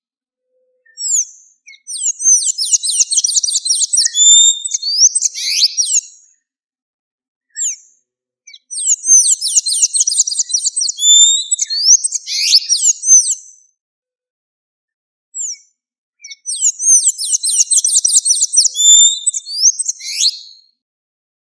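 Blue-grey tanager (sanhaço-da-amazônia) singing three bouts of fast, squeaky, twittering high notes, each several seconds long, with short pauses between them.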